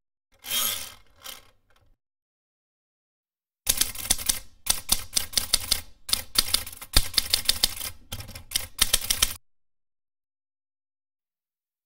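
Typewriter keys clacking as a sound effect: a short flurry of strikes near the start, then after a pause a long run of rapid keystrokes that stops abruptly.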